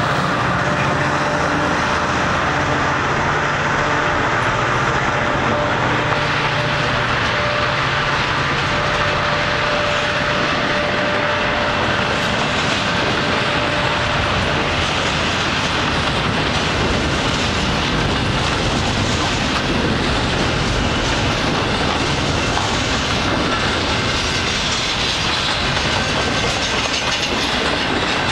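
Freight train of double-stack container well cars rolling past close by, a steady rumble with the clickety-clack of wheels over the rails. The low drone of the diesel locomotives that have just passed dies away over the first several seconds.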